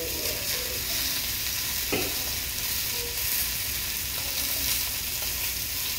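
Sausages sizzling steadily as they fry in a stainless steel pan, with one short click about two seconds in.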